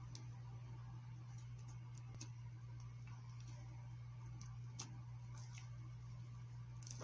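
A steady low hum with faint, irregular clicks scattered over it.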